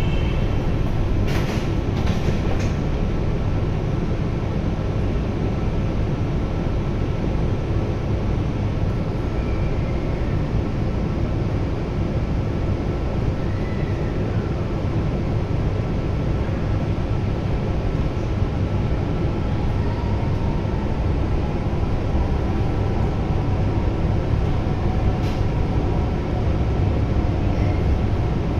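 Interior noise of a CRRC-built Hanoi Metro train car: a steady rumble and hiss with a faint constant tone, and a couple of knocks about two seconds in. The sliding doors close and the train sets off, with a faint motor whine from about two-thirds of the way through.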